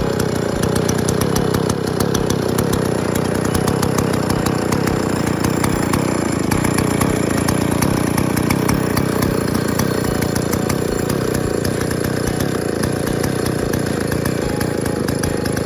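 Neotec 8105 105cc chainsaw running steadily at high throttle on an Alaskan chainsaw mill, cutting a slab from a marri log.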